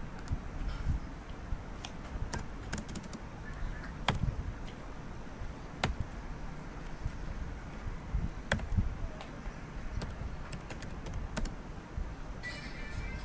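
Typing on a computer keyboard: irregular key clicks with short pauses between bursts. Music starts near the end.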